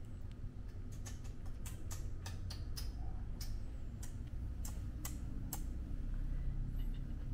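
Calculator keys being pressed: about fifteen sharp, irregular clicks, starting about a second in and stopping after about five and a half seconds, over a steady low room hum.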